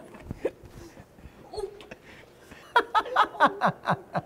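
A person laughing in a quick run of short bursts, starting a little under three seconds in.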